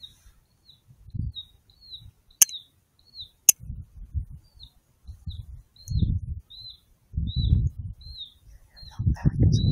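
Short high chirps repeating about twice a second, bird-like, over irregular low rumbling bursts. Two sharp clicks come in the first half.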